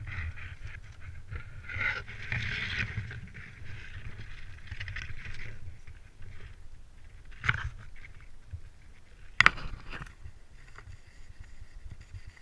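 Conifer branches and clothing rustling close to the microphone for about six seconds, then quieter, with a sharp click about seven and a half seconds in and a louder, very short crack about nine and a half seconds in.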